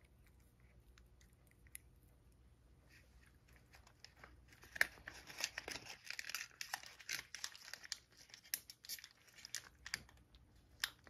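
A cat crunching small dry treats, a quick run of crisp crackles that starts about four seconds in and goes on for several seconds.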